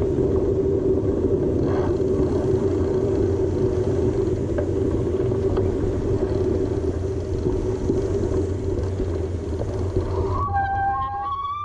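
A vehicle's running noise on the move: a steady engine drone with road and wind rumble. Near the end it cuts off abruptly and a short pitched tone starts.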